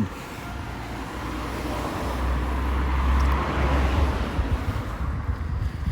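A car driving past, its tyre and engine noise swelling to a peak about three seconds in with a low rumble, then fading away.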